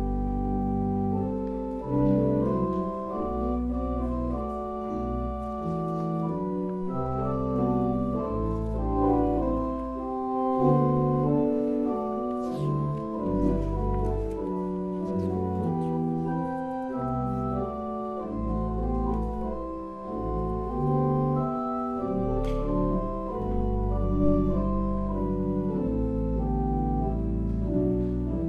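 Organ playing a slow piece of held chords over sustained bass notes, the notes changing about once a second.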